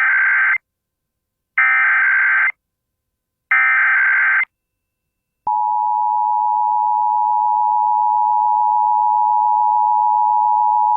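Emergency Alert System header tones: three data bursts of about a second each, with short gaps between them, that open a required monthly test. About five and a half seconds in they are followed by the steady two-tone EAS attention signal.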